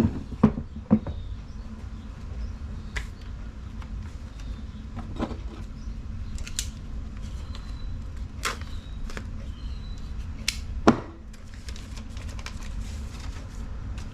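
Small engine parts and tools being handled: scattered light clicks and taps, a few sharper ones in the first second and a louder knock about eleven seconds in, over a steady low rumble.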